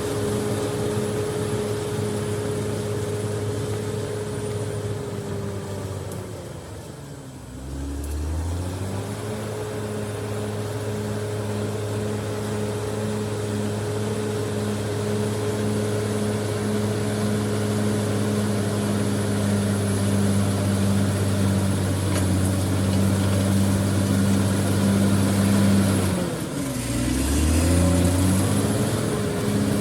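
Caterpillar D6R XL bulldozer's diesel engine running steadily, with a thin high whine on top. Twice the revs sag and then climb back up: about a quarter of the way in, and again near the end.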